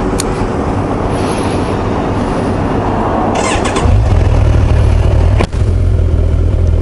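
Kawasaki Ninja 1000SX's inline-four engine starting about three and a half seconds in, then running at a steady idle.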